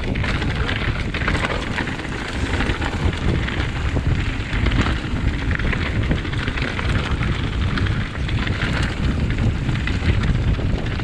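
Mountain bike riding over a rocky, gravelly trail: tyres crunching on loose stones with constant clatter and knocks from the bike, and wind buffeting the microphone.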